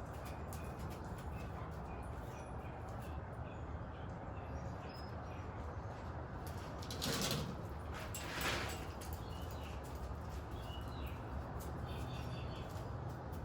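Steady outdoor background noise with two brief loud swishes about seven and eight and a half seconds in, and faint bird chirps.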